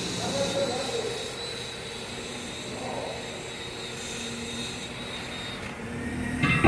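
Steady mechanical drone with a faint high whine running through it, and a short, louder metallic knock near the end.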